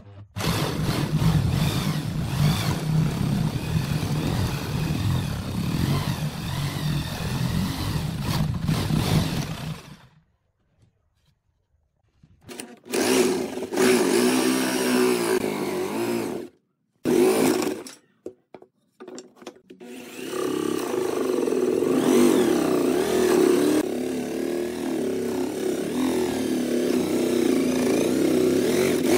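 Electric drill boring holes through a wooden board with a spade bit, its motor running under load: a long run of about ten seconds, a pause, two short bursts, then another long run from about twenty seconds in at a higher pitch.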